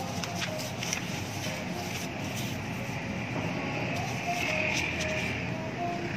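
Steady background noise of a busy indoor office hall, with a few light clicks in the first second.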